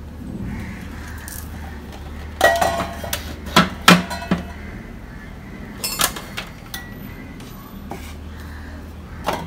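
Kitchenware knocking and clinking on a shelf as a hand beater is set down among stainless-steel flasks and containers and plastic bottles are moved. There is a quick run of knocks and clinks, some ringing briefly, a few seconds in, then a single clink about six seconds in and another near the end.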